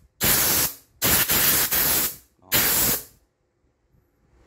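A 3M cast-aluminium air blow gun firing blasts of compressed air: three loud hissing bursts, the middle one the longest, then it stops about three seconds in. It is blowing very hard.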